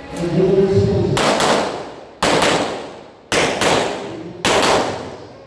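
Metro Arms American Classic 1911 pistol firing a string of loud shots, roughly one a second, each shot sharp with a ringing tail.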